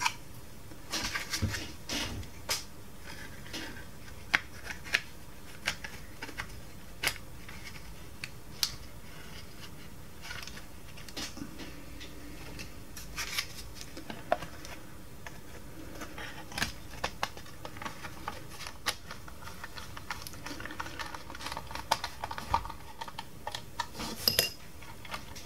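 Plastic toy casing parts and a small screwdriver handled during reassembly, making scattered, irregular clicks and light knocks over a low steady background.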